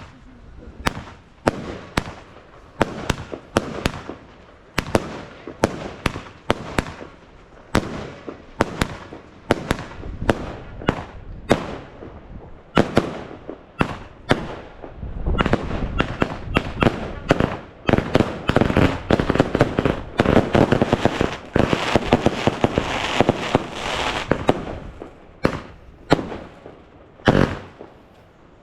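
Fireworks going off: a quick run of sharp bangs, about two a second, that thickens into dense, overlapping crackling about halfway through, then thins back to separate bangs near the end.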